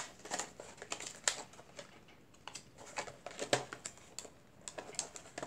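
Irregular light clicks, taps and scrapes of a small paperboard box being opened and handled.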